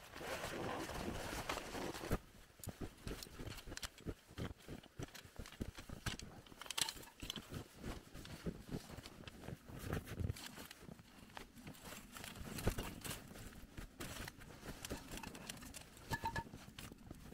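Footsteps crunching in deep snow and the rustle of nylon tent fabric and camping gear being handled, with scattered light knocks. The rustling is densest in the first two seconds, and a short double squeak comes near the end.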